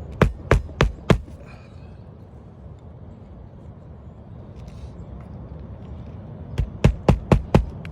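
Hammer driving roofing nails into a new asphalt shingle: four quick strikes at the start, a pause of about five seconds, then another run of strikes near the end, about three or four a second.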